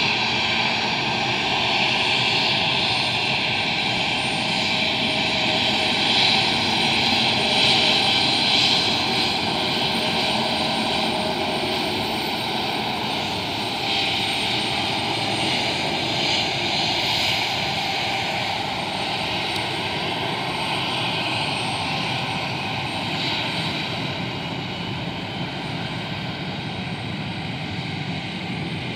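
Embraer E195 airliner's twin CF34 turbofan engines running at steady power as it taxis, a continuous jet whine and hiss that slowly fades over the last several seconds as the aircraft moves away.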